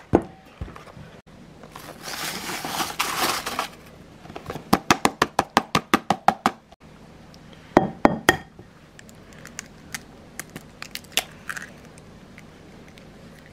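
Dry Jiffy corn muffin mix poured from its cardboard box into a ceramic bowl: a crinkly rustle, then a quick run of taps as the box is shaken out. About eight seconds in come a couple of sharp knocks, an egg being cracked for the batter.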